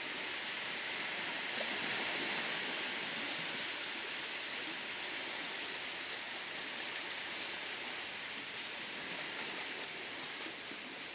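Steady rush of ocean waves washing in, swelling about two seconds in and then slowly easing off.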